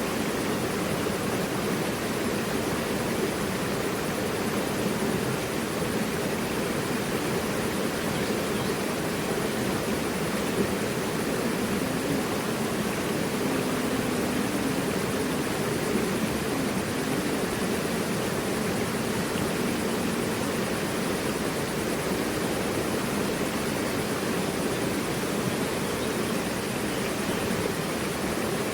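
Mountain river rushing steadily over rocks, a constant full water noise strongest in its lower, rumbling range.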